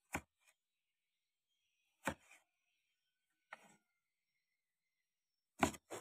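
Four sharp knocks, one or two seconds apart, with silence between them.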